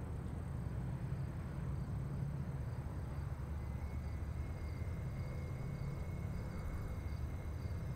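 Night outdoor ambience: a steady low rumble, with insects chirping faintly in a regular pulse that comes in about halfway through.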